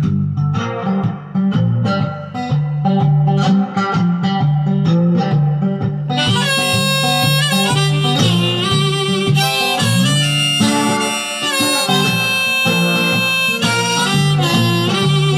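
Guitar in open G tuning strummed in a steady rhythm, with a harmonica in a neck rack joining about six seconds in and playing sustained, bending chords over it.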